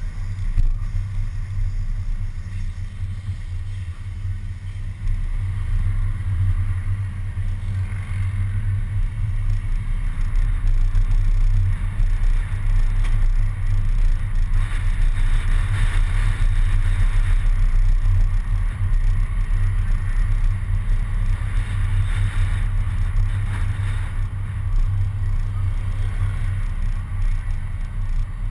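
Steady low rumble of wind buffeting a camera mounted outside on the front of a moving bus, mixed with road and traffic noise. It grows louder about a third of the way in.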